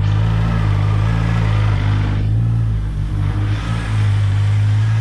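2021 BMW S1000RR's inline-four engine idling steadily through the stock exhaust just after its first start on a Brentune Stage 2 ECU flash. The flash holds the exhaust servo flap open, which gives a deeper idle note.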